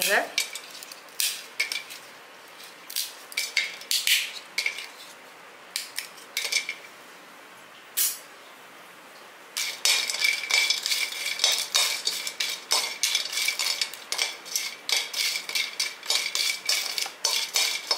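Quill cinnamon sticks snapped by hand and dropped into a dry aluminium kadai, in scattered sharp clicks and clatters. From about halfway, a metal spatula scrapes and stirs the pieces around the pan in a fast, continuous clatter with a faint ring from the pan, dry-roasting the cinnamon.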